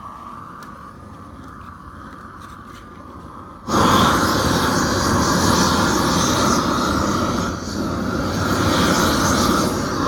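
Propane roofing torch opened up to full flame about four seconds in, a loud steady rushing roar of burning gas that dips briefly near the end, heating the modified-bitumen roofing membrane. Before that only a low steady hiss.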